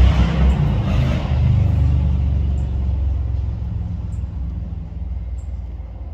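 Low engine rumble of a passing motor vehicle, loudest at the start and fading steadily as it moves away.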